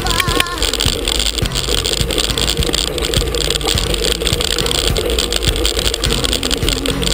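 Wind buffeting and rattling from a mountain bike ridden along a bumpy dirt trail, with many short knocks from the bumps. Faint background music runs underneath.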